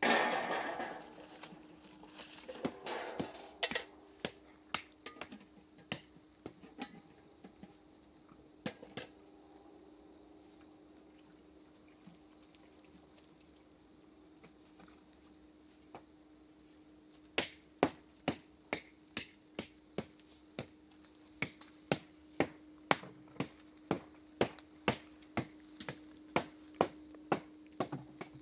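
Sharp clicks or taps over a faint steady hum. A noisy burst comes at the start, then scattered clicks for several seconds and a quiet stretch. From about halfway on there is an even run of about two clicks a second.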